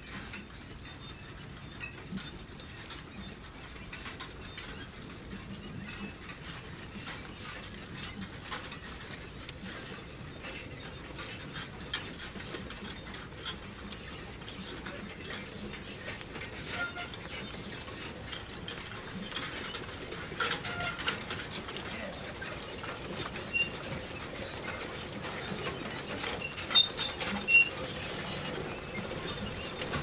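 Manure spreader running: a continuous mechanical clatter of rapid ticks and rattles, getting a little busier partway through, with two sharper knocks near the end.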